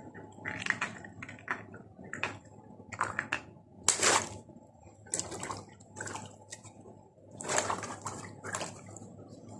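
Water-filled latex balloons pricked with a pin and bursting with a splash of water, the loudest about four seconds in and again about seven and a half seconds in. Between the bursts come short rubbing and squelching noises of wet balloons being handled.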